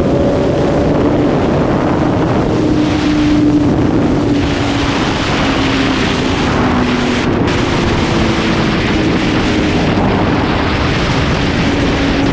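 Sport motorcycle engine running at a steady cruise, its pitch drifting only slightly, under heavy wind rush on the microphone at road speed.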